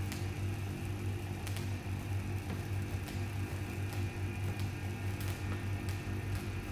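Van de Graaff generator running: a steady low motor-and-belt hum, with a few scattered faint clicks.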